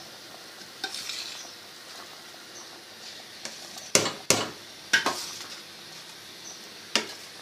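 Soaked rice being added to a pot of boiling chana dal and water, with a metal spoon clinking and knocking against the pot over a steady simmering hiss. A few sharp knocks come about four and five seconds in, and another near the end.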